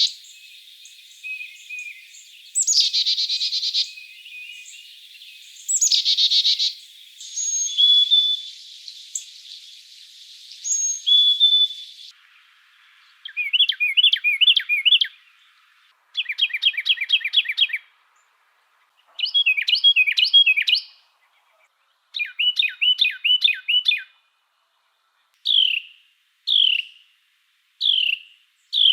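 Songbirds singing, one species after another. First, a repeated song every few seconds of a fast run of dropping notes with short whistles between; from about twelve seconds in, a bird singing quick trilled phrases about two seconds long with short gaps; and near the end, single sharp falling chirps about once a second.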